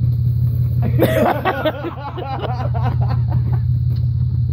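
A steady low hum, with indistinct voices and laughter from about a second in.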